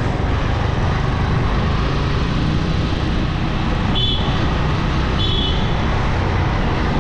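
Motorcycle riding in city traffic: steady engine and road noise, with two short high beeps a little over a second apart midway through.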